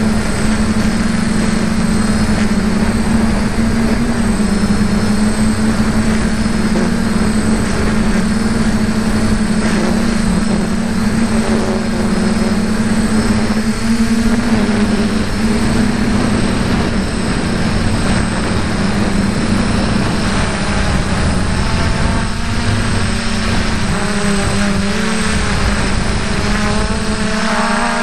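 F450 quadcopter's electric motors and propellers buzzing steadily in flight, the pitch wavering a little as the motor speeds adjust, with higher tones gliding up and down in the last several seconds.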